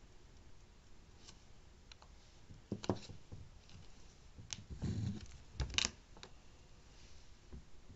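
Nail-stamping tools working a metal stamping plate: a plastic scraper dragged across the plate, then a rectangular stamper pressed onto the design. A few short clicks and scrapes begin about three seconds in, with a soft dull knock and a sharper click a little later.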